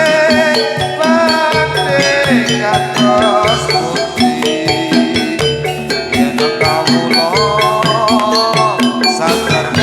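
Javanese gamelan music for a jathilan dance: metallophones beat a steady repeating pattern of struck notes with rattling percussion. A wavering held melody rises above them twice, about two seconds in and again about seven seconds in.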